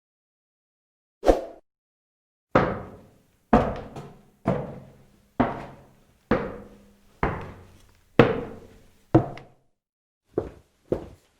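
Footsteps on a hard floor: a single step, then a slow, even walk of about one step a second, each step with a short echo; the steps come quicker near the end.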